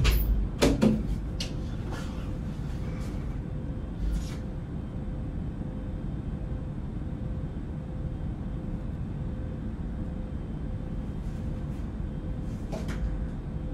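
A door clicking and knocking as it is opened and handled, with several sharp clicks in the first three seconds, another knock about four seconds in and a couple of light clicks near the end, over a steady low hum.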